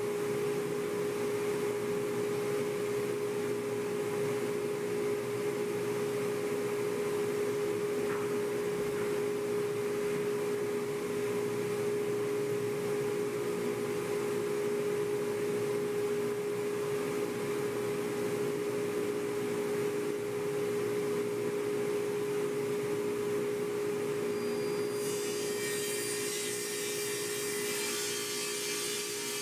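Table saw running freely with a steady hum. About 25 s in, the blade starts cutting a melamine-faced particleboard panel, adding a bright hissing cutting noise over the hum.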